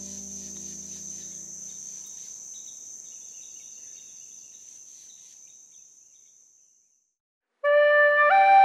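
Crickets chirping in a steady high trill over a low held music chord, which dies away in the first two seconds. The crickets fade out to silence about seven seconds in. Near the end a flute starts playing a melody in clear stepped notes, much louder than what came before.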